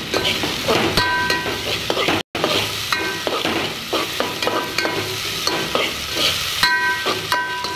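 Onions and ginger-garlic-chilli paste sizzling as they fry in hot oil in a metal pot. A metal spoon stirs them, scraping and clinking against the pot several times, and some strokes make the pot ring briefly.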